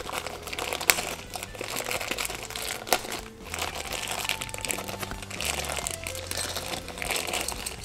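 Cellophane wrapping crinkling as it is handled and pulled off a small metal purse clasp, with a couple of sharp clicks about a second and three seconds in.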